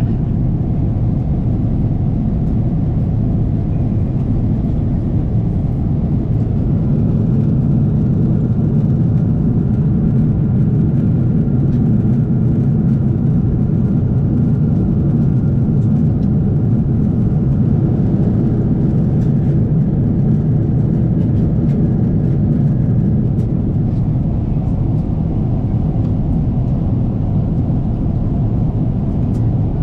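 Steady low drone of a Boeing 777-300ER cabin in cruise, the engines and the airflow along the fuselage heard from a passenger seat, with a faint steady whine through the middle.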